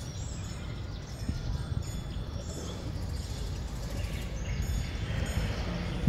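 Outdoor ambience: small birds chirping in short, quick rising and falling calls over a low, uneven rumble.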